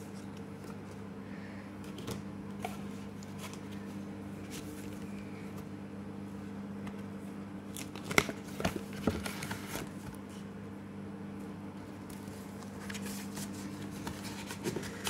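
Hands handling trading cards and opening a paper card pack: soft rustling and sliding of card and paper, with a cluster of sharp crinkles and clicks about halfway through. A steady low hum runs underneath.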